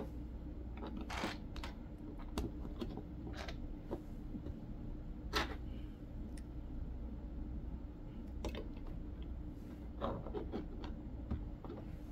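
Plastic Lego bricks being handled and pressed together: scattered short clicks and taps, one sharper click about five seconds in, over a steady low hum.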